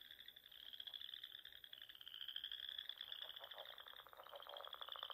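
A faint chorus of frogs calling in steady, rapid pulsed trills, with a lower pulsed trill joining about three seconds in.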